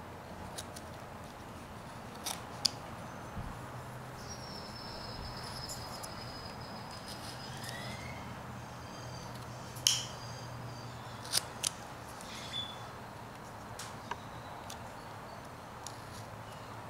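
Carving knife slicing and snapping small chips off a hand-held wooden figure: scattered, irregular sharp clicks and snips, a handful of them standing out, over a quiet background.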